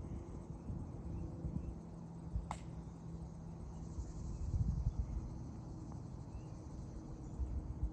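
Faint high insect calling from the summer woods over uneven low wind rumble on the microphone. A single sharp click comes about two and a half seconds in.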